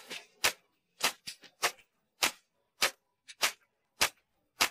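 Sparse percussive backing music: sharp clicks on an even beat, a little under two a second, with a few extra quick clicks about a quarter of the way in.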